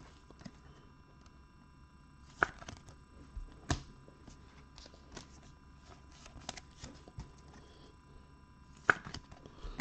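Glossy NBA Hoops Premium Stock trading cards being handled and laid on a table: scattered light clicks and taps. Sharper taps come about two and a half seconds in, near four seconds, and again near the end.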